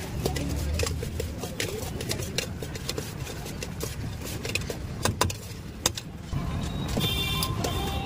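A metal spoon clinking and scraping against a stainless steel bowl as bhel puri is tossed and mixed: a quick irregular run of clicks over a low steady rumble of traffic. Near the end a steady high pitched tone comes in.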